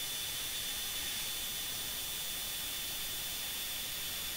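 Steady cockpit noise of a Blue Angels F/A-18 jet climbing: an even rush of air and engine hiss with a thin, steady high whine.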